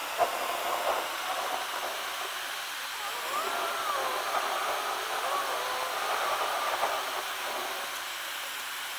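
Steady hiss of road and wind noise inside a moving car's cabin. Faint wavering tones sit over it from about three to seven seconds in.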